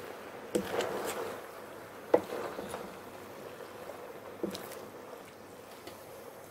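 Wooden spatula stirring a wet pork and vegetable stir-fry in a large aluminium pot, the juicy vegetables sloshing and rustling, with three sharp knocks of the spatula against the pot.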